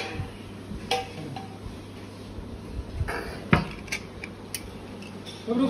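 Metal cookware clinking: a few separate knocks and clanks as an aluminium pressure cooker's lid is handled and lifted off, the loudest about three and a half seconds in.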